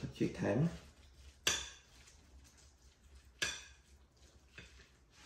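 A metal spoon clinks sharply against a glass mixing bowl while scooping sticky rice: two clear clinks and a fainter third. A brief voice sound comes at the very start.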